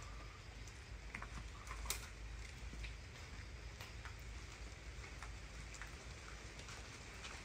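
Faint light rain with scattered drips ticking irregularly, one slightly sharper tap about two seconds in.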